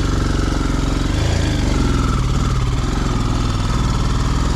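Motorcycle engine running steadily at low revs, its pitch shifting slightly about a second in.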